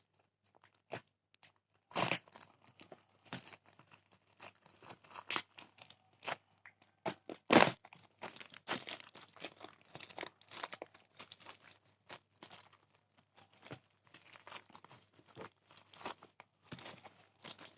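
Shipping package being torn open by hand and its wrapping crinkled: a string of sharp rips and crackles, the loudest rips about two seconds in and about seven and a half seconds in.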